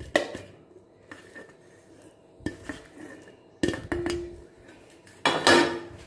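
A metal spoon clinking and knocking against metal cookware as fried red chillies are scooped into the mixer jar: a few separate knocks, two of them ringing briefly, the loudest about five seconds in.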